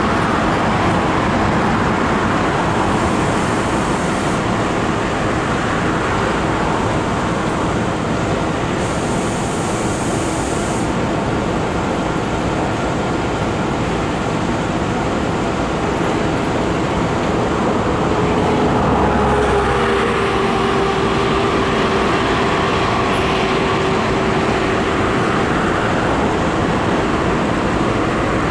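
Steady road traffic passing close by on a road bridge. A little past the middle, one vehicle's engine tone stands out for several seconds, sinking slightly in pitch.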